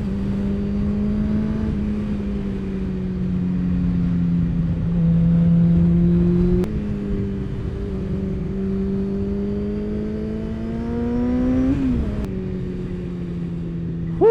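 Motorcycle engine running under load while riding, its pitch climbing and dropping with throttle and gear changes, with a sharp climb and then a drop near the end as it shifts up. Wind noise rushes underneath.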